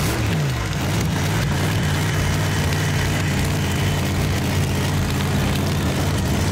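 Simulated monster-truck engine sound for a Grave Digger ride-on toy truck: a rev that falls away just after the start, then a steady, low-pitched engine note.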